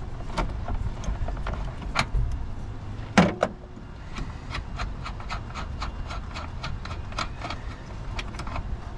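Hand ratchet wrench and small metal clicks while the 13 mm battery hold-down bracket bolt is loosened. Scattered sharp clicks come first, the loudest about three seconds in, then a run of light, quick ticks, over a steady low rumble.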